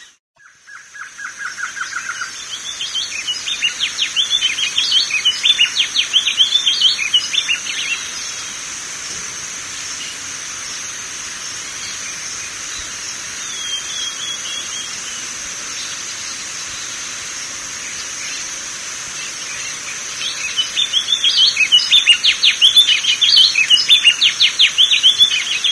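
Wing-barred seedeater (coleiro-do-norte, Sporophila americana) singing: a short run of even notes, then a long, fast, jumbled twittering song, a pause of over ten seconds, and a second song bout from about twenty seconds in. A steady high-pitched hiss runs underneath.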